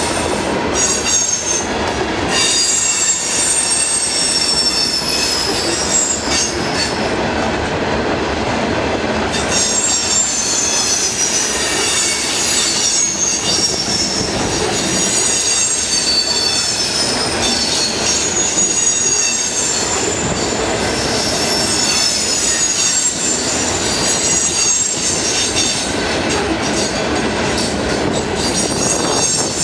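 Loaded coal gondola cars rolling past, their steel wheels squealing against the rail in shifting high-pitched tones over a steady rumble and clatter of the train.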